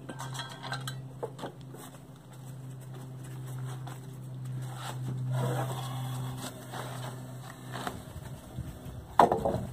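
Light knocks and scrapes from a paint can and stir stick, then a wooden plank on sawhorses being shifted, with a louder knock near the end. A steady low hum runs underneath and stops shortly before the knock.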